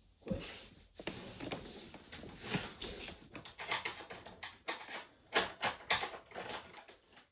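Handling noise: irregular rustles, clicks and knocks of objects being picked up and moved about.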